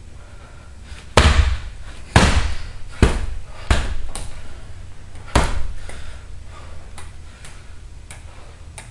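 Heavy punching bag being struck hard, five heavy thuds about a second apart in the first half, followed by several lighter knocks.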